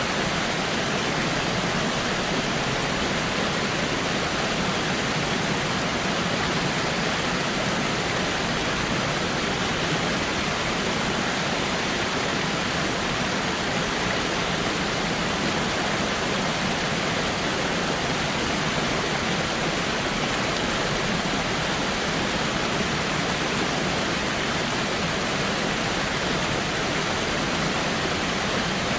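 Waterfall rushing steadily, an even noise with no breaks.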